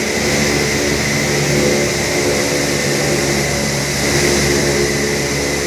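Machinery of a working sugar mill running: a loud, steady industrial drone with several steady hum tones and a thin high whine over it.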